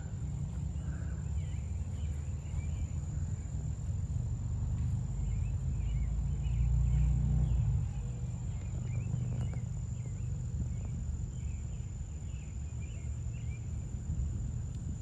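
Outdoor ambience: a low rumble of wind on the microphone, swelling about six seconds in, with scattered bird chirps and a steady high-pitched insect drone.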